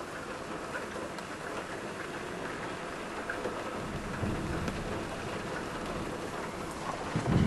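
Downpour of rain falling steadily during a thunderstorm. A low rumble of thunder builds from about halfway through and grows loudest near the end.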